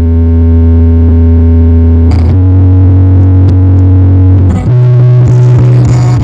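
Very loud, distorted bass-heavy music played through a large sound system of subwoofers and line array speakers, with long held bass notes that change pitch about every two seconds.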